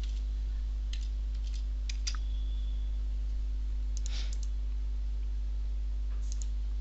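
Scattered computer keyboard keystrokes and mouse clicks, a few at a time about one, two, four and six seconds in, over a steady low electrical hum.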